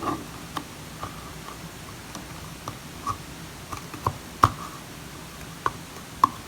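Light, irregular clicks and taps of a utensil working sticky ground fruit powder in the cup of a coffee and spice grinder. The loudest tap comes about four and a half seconds in.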